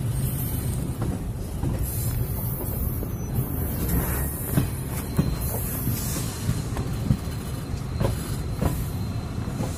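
A train running, heard from its open doorway: a steady low rumble of wheels on rail. From about four seconds in, regular clacks come nearly twice a second as the wheels cross rail joints.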